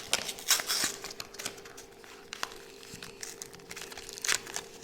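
Plastic packaging crinkling and clicking in irregular rustles as it is handled and opened, loudest about half a second in and again near the end.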